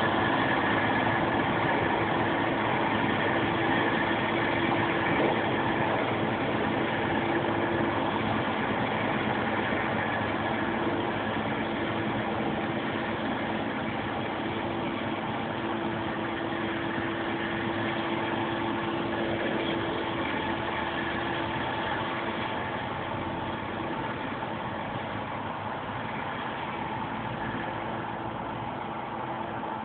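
Claas Lexion 550 combine harvester running steadily, an even mechanical hum with a few steady tones, slowly fading.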